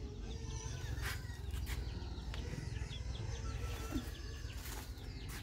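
Birds chirping faintly over a steady low outdoor rumble, with a few soft knocks.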